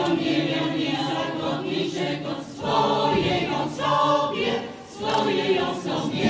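Choir singing a Polish Christmas carol (kolęda) in held chords, with two short breaks between phrases.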